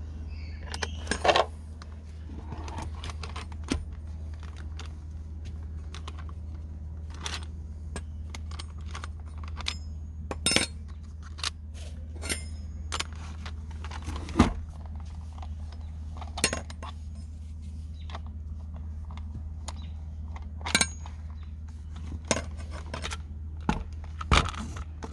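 Irregular metallic clicks, clinks and light scrapes from handling the side cover and bar nut of a Makita top-handle chainsaw with a metal tool while the bar and chain are tightened, over a steady low hum.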